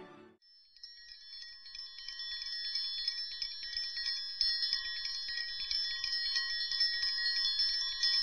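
Music cuts off at the very start, and under a second later chimes begin tinkling: many bright, overlapping ringing notes that keep going and grow louder over the first few seconds.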